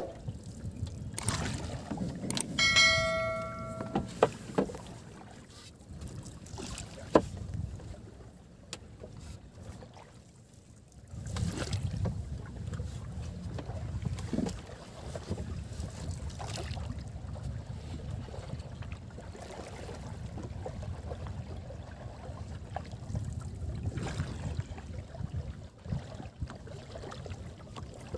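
Wooden boat being poled along a river: a low rush of water and wind against the hull, with a few sharp knocks from the pole, and a short ringing tone about three seconds in.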